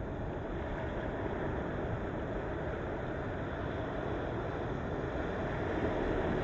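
Sea surf: waves washing in steadily, swelling a little near the end.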